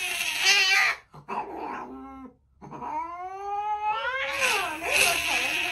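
Tabby cat yowling and hissing in distress as it is held and its leg is handled: harsh hisses near the start and end, with long drawn-out wails between them, one of them rising.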